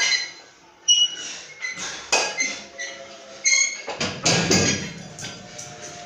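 Iron weight plates and bars clanking several times, each knock ringing briefly, then a heavier thud about four seconds in as a plate-loaded EZ curl bar is set down on the concrete floor.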